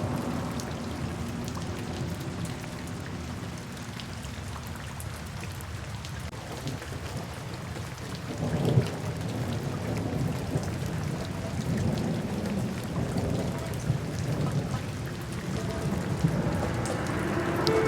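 Steady rain falling, with low rolling thunder that swells to its loudest about nine seconds in.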